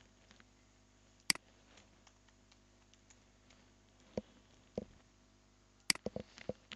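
Sparse clicks of a computer keyboard and mouse. There is one sharp click about a second in, two more a few seconds later, and a quick cluster of clicks near the end.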